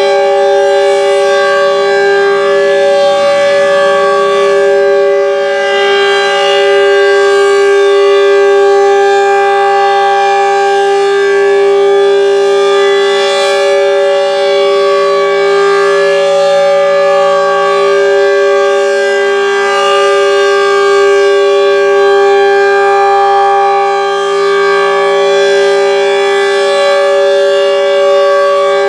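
Outdoor civil defense tornado siren sounding a loud, steady tone that keeps nearly the same pitch throughout: the tornado warning alert.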